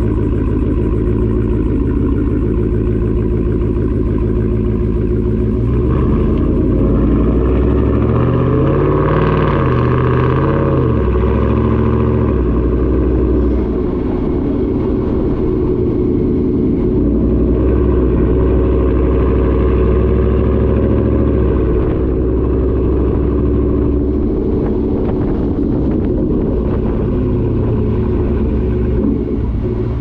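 Ford F-150's 5.0-litre V8 through a Borla ATAK cat-back exhaust, heard right at the tailpipes while driving: a deep, loud exhaust note. It climbs in pitch and then drops back about a third of the way in, then holds a steady cruising tone.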